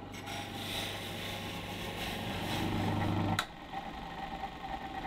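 Electric bench grinder running with a steady hum, a small steel skull coaster held against the spinning wheel giving a scratchy hiss that builds slightly. The sound cuts off abruptly with a click about three and a half seconds in.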